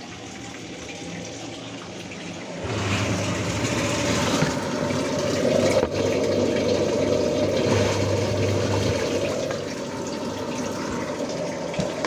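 Spin tub of a Voltas Beko semi-automatic washing machine starting up about two and a half seconds in and running steadily, with a rush of water. The spin motor, which had not been working, now runs after the repair.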